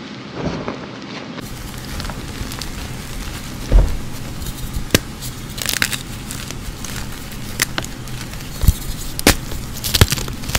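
Hands crumbling and crushing gym chalk: gritty crunching of red-dyed reformed chalk, then a white block being broken apart, with sharp snaps as pieces break, the loudest about four seconds in.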